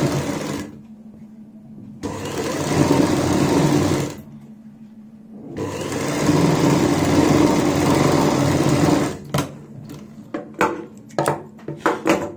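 Sewing machine stitching in three runs with short pauses between, the longest about three and a half seconds, sewing a topstitch one presser-foot width from the edge of a sleeve cuff. A string of sharp clicks and rustles follows near the end.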